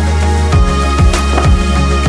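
Background music with a steady beat and a deep, sustained bass.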